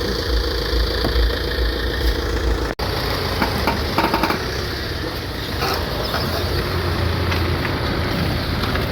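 Tata Safari's engine running steadily, broken by a very short dropout about three seconds in, with a few light clicks over it.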